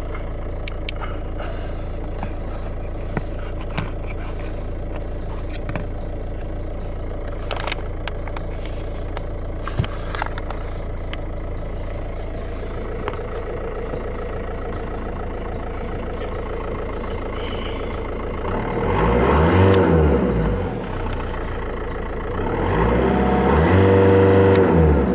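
A steady low hum with a few faint clicks from handling parts in the footwell. Near the end, motor vehicles go by twice, each one swelling up and fading away.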